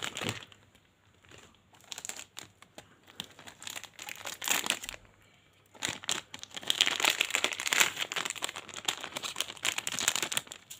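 Plastic wrappers of Choki Choki chocolate-paste snack packs crinkling as they are handled and turned over, in bursts with short pauses, densest in the second half.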